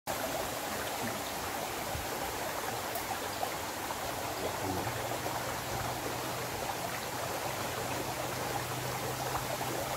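Small creek water running with a steady rush and trickle. A faint low steady hum joins about halfway through.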